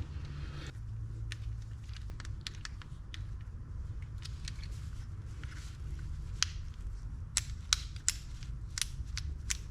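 Small sharp clicks and taps of metal fishing-reel parts being handled and pressed together while a spring-loaded mechanism is fitted back on, scattered at first and coming thicker and sharper in the second half.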